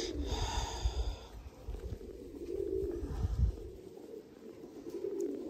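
Domestic pigeons cooing, with a low rumble through the first three seconds or so.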